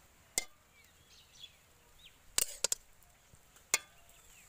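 Metal ladle clinking against an aluminium biryani pot as chicken curry is spooned in: a handful of sharp clinks, three of them close together about halfway through. Faint bird chirps in the background.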